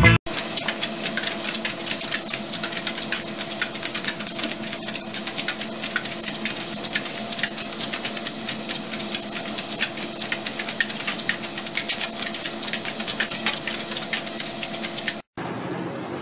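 Motorised ProForm treadmill running with a steady hum, under a fast, even patter of clicks from two corgis' paws trotting on the moving belt. About a second before the end it cuts to quieter outdoor street noise.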